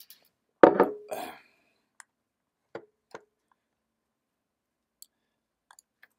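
A brief voiced sound from a person about half a second in, the loudest thing here, followed by a few faint, scattered clicks.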